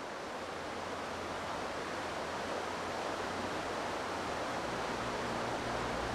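Steady rushing of a fast-flowing river, rising slowly in level. Low, sustained music notes come in near the end.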